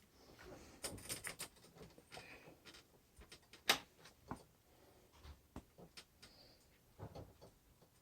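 Hands working small wheel parts: scattered light clicks and soft rustling, with one sharp click a little under four seconds in.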